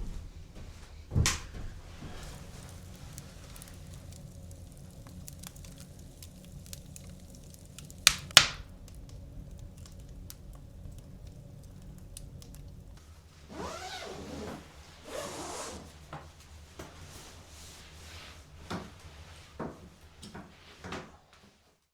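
Handling sounds: a knock about a second in, two sharp loud knocks in quick succession about eight seconds in, then a few seconds of rustling and scattered light clicks over a low steady hum.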